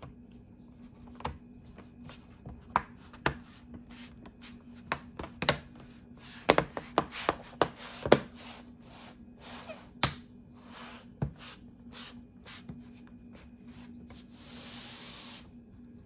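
Plastic clicks, taps and knocks as the laptop's bottom cover is pressed back into place by hand. Hands rub across the case, with a longer rub near the end.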